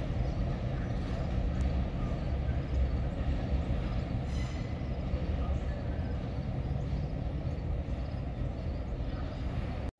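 C&IM EMD RS1325 diesel locomotive running as it moves its freight train away along the track, a steady low rumble that gradually fades.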